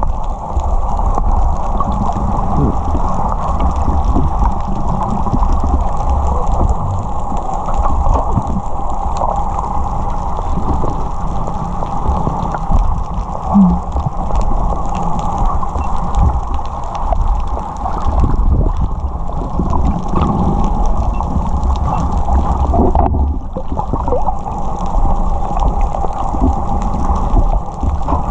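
Muffled water noise heard underwater: a steady deep rumble with sloshing and small crackles, dull and without any clear high sounds.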